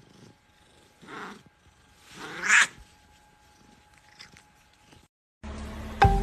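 Long-haired white cat meowing twice while being petted: a short, soft call about a second in, then a louder, longer one that rises in pitch. Light chiming music starts near the end.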